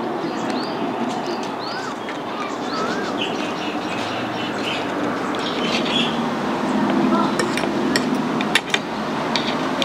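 Busy outdoor background: indistinct voices, several short bird chirps in the first few seconds, and a few sharp clicks in the second half.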